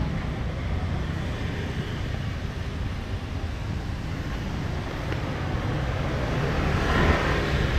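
City street traffic with a steady low rumble, and one vehicle passing louder near the end.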